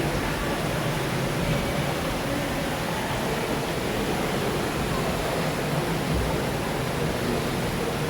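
Steady rushing noise of moving water, even and unbroken throughout.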